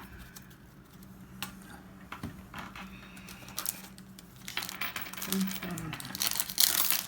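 Pokémon card booster packs and cards being handled: a few light clicks, then foil wrapper crinkling and rustling that grows louder over the last couple of seconds.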